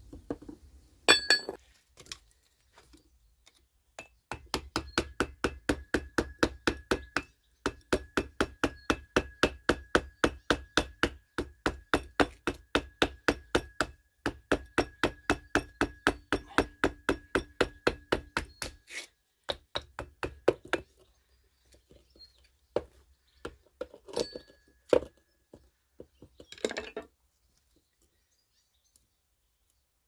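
Metal tool tapping rapidly against a small electric motor's housing, about four sharp, ringing strikes a second for some fifteen seconds, as the copper-wound stator is worked loose. A loud metal clatter comes about a second in, and scattered knocks follow the tapping.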